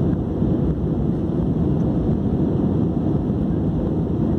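Steady low rumble of a jet airliner in flight, engine noise and airflow heard from inside the passenger cabin.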